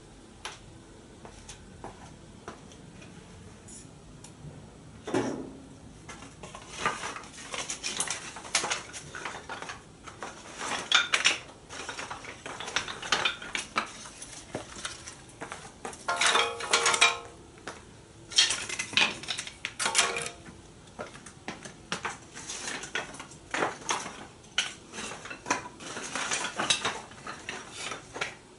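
Metal objects clattering and clinking as they are handled, in irregular knocks, with a brief ringing clang about two-thirds of the way through.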